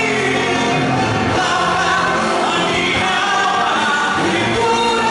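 Congregation or choir singing a Christian worship song over instrumental accompaniment.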